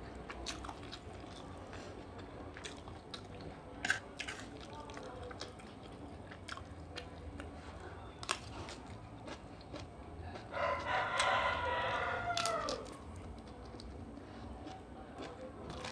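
A rooster crows once, about two seconds, two-thirds of the way through, the loudest sound here. Around it are scattered small clicks and chewing from someone eating.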